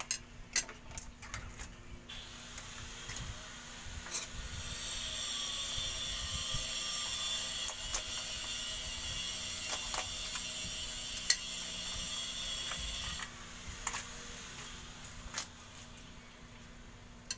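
A knife and hands working a raw plucked chicken on a plastic cutting board: scattered clicks and knocks. Under them a steady hiss comes in about two seconds in, grows louder, and cuts off abruptly a few seconds before the end.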